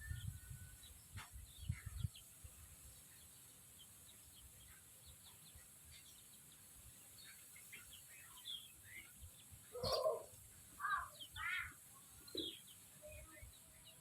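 Chickens calling in short, scattered chirps and clucks, mostly in the second half, the loudest call about ten seconds in. A few low thumps near the start.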